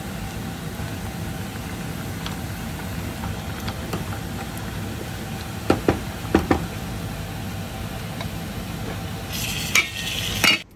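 A pot of taro and dried-fish curry simmering and steaming on a gas hob. A wooden spoon stirs it and knocks against the steel pot three times a little past the middle. A brighter hiss comes in near the end.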